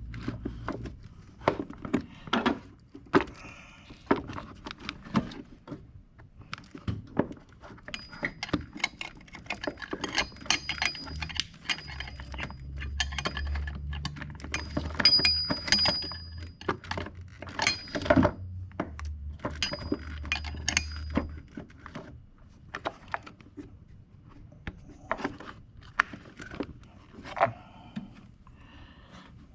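Irregular metallic clinks and knocks of a wrench and tools working the serpentine belt tensioner on a GM 3.8L V6 while the belt is worked onto the pulleys. A low hum runs under the clinks through the middle stretch.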